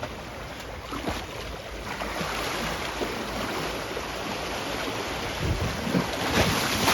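Wind buffeting the microphone over the wash of waves, a steady rushing noise that grows louder after about two seconds, with a few faint knocks.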